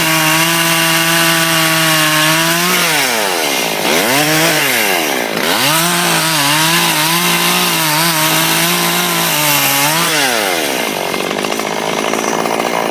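Chainsaw running at high revs while cutting up tree branches; its pitch drops and climbs back several times as it is throttled off and on, and near the end it falls to a lower, rougher running.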